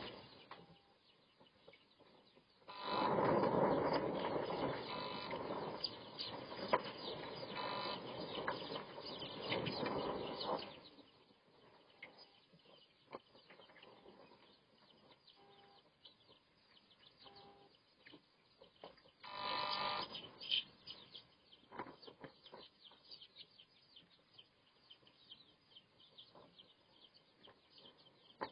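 Kadaknath chickens clucking and chirping. A louder stretch of dense noise runs from about 3 to 11 seconds in, and a short loud burst comes about 19 seconds in.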